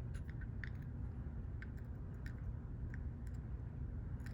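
Faint, scattered light clicks of small lock pins and tweezers being handled, over a steady low hum.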